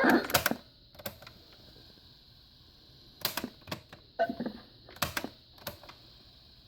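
Several short, sharp clicks and taps, irregularly spaced, with a louder cluster at the start.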